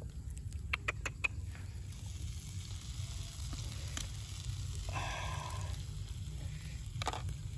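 Pig's head and pork pieces sizzling on a wire grill over charcoal, over a steady low rumble. Sharp clicks come about a second in and again near the end, as a knife cuts into the meat.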